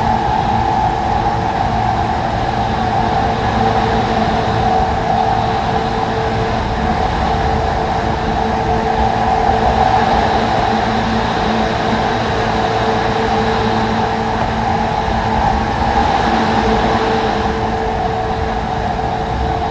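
JR 185 series electric express train running at steady speed, heard from inside the passenger car: an even rumble of wheels on rail with a few steady humming tones through it.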